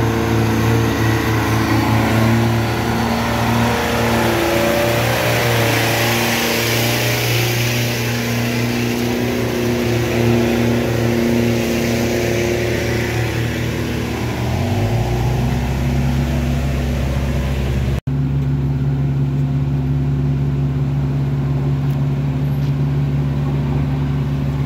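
Diesel engines of a light dump truck and a bus pulling up a steep, rough gravel climb, running hard under load, with the engine note shifting lower about fourteen seconds in. About eighteen seconds in the sound cuts abruptly to a minibus engine running steadily as it climbs.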